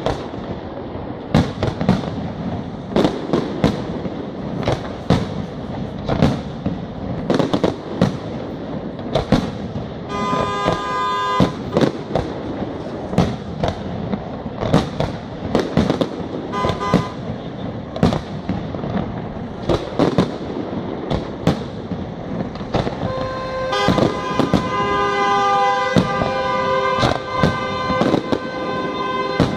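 Aerial firework shells bursting one after another in quick succession. Steady horn-like tones sound briefly about a third of the way in, and again through the last several seconds.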